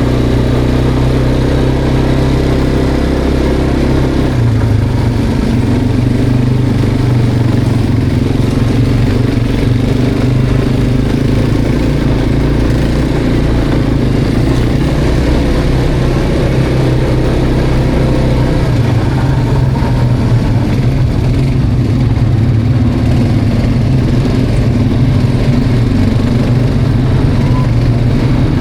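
Quad bike (ATV) engine running loud and steady while riding, its note stepping up about four seconds in and then wavering with the throttle.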